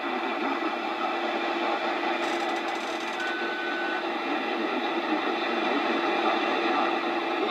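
Early-1970s Radio Shack DX-150A shortwave receiver tuned to WWV on 5 MHz, its speaker giving a steady hiss of shortwave static with a faint steady low tone underneath. A brief higher tone sounds about three seconds in.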